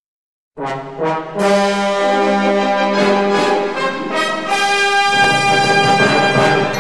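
Military wind band playing a Latin-style piece, led by brass with trombones prominent. After a brief silence it opens about half a second in with a few accented chords, then sustained brass chords.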